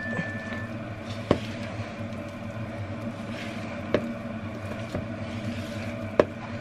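Silicone spatula stirring wet bread dough in a plastic mixing bowl, with three sharp knocks of the spatula against the bowl spaced a few seconds apart, over a steady low hum.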